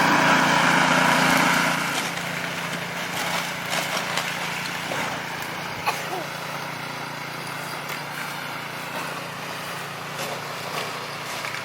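Snowblower engine running steadily, louder for the first couple of seconds and then dropping back to a lower, even hum.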